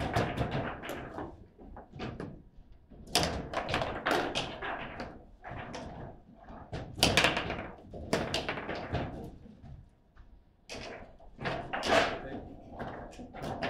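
Table football being played: irregular sharp clacks and knocks as the plastic men strike the ball and the rods are jerked and shot across the table. There is a brief lull about ten seconds in.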